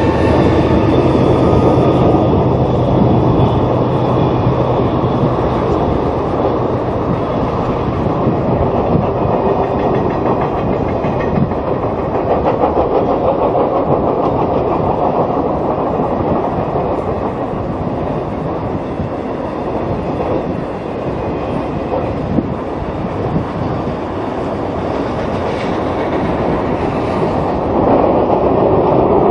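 Norfolk Southern freight train crossing a steel girder bridge: a diesel locomotive's steady engine tone fades over the first few seconds, then the continuous rumble and clickety-clack of autorack cars rolling over the bridge.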